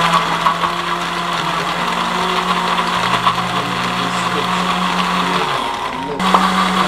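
Electric countertop blender running steadily, puréeing fruit into a red smoothie.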